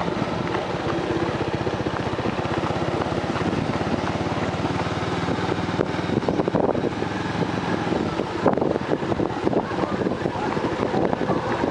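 Motorcycle engine running steadily under way, heard from the pillion seat, with wind buffeting the microphone, gustier in the second half.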